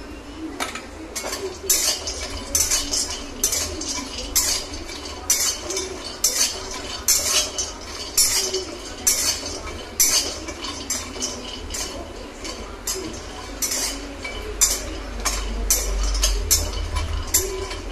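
Metal spatula scraping and clinking against a metal kadai, stirring cashews as they dry-roast, in repeated irregular strokes about one or two a second.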